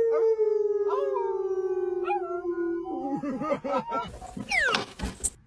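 A schnauzer and the people in the car howling together: one long howl held about three seconds, slowly sliding down in pitch, then laughter and a short falling howl near the end.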